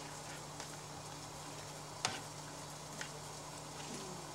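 A cooking utensil stirring and turning greens in a stainless saucepan, with a few light clicks of the utensil against the pan, the loudest about two seconds in. Under it a steady faint hiss and a low hum.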